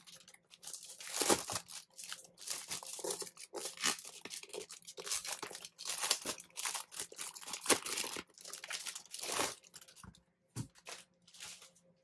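Clear plastic bag crinkling and rustling in quick, irregular bursts as it is pulled off a keyboard, thinning out about ten seconds in.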